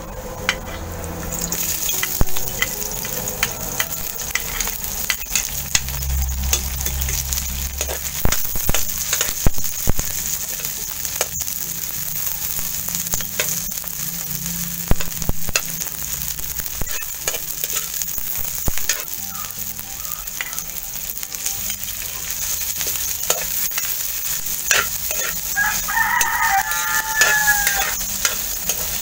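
Garlic and onions sizzling in hot oil in a metal wok, the frying hiss swelling about a second in as the onions go in, with a metal spatula scraping and clicking against the pan while stirring. A rooster crows once near the end.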